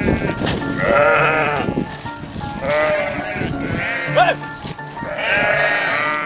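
Sheep bleating about four times, each call wavering in pitch, over background music. A man gives a short "oh" a little after four seconds in.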